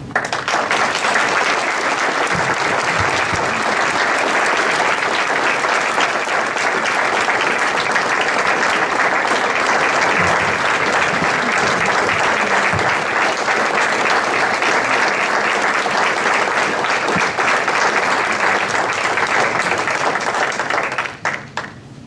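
Audience applauding steadily for an award recipient, the clapping dying away near the end.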